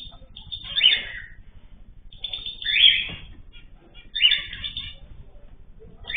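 Pet birds in cages or an aviary calling: loud chirping calls about every one and a half to two seconds, with fainter chatter between them.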